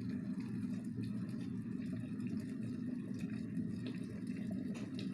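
RZTK KS 2217E electric kettle heating water close to the boil: a steady bubbling noise with a few faint ticks.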